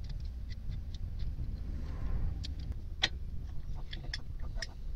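Light metallic clicks and ticks of an 18-inch Bahco adjustable wrench being handled and fitted onto a nut, with one sharper click about three seconds in, over a steady low rumble.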